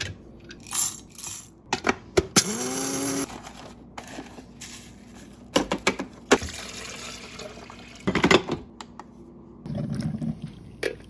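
Kitchen sounds of making coffee: clinks and knocks of dishes, and water running into a container for about a second, its pitch rising as it fills. Later comes a longer stretch of rushing noise.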